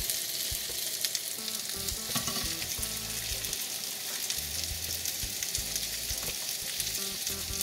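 Whole cumin and nigella seeds tempering in hot ghee, giving a steady sizzle dense with small crackles. A silicone spatula scrapes and stirs as the spiced ghee is poured out.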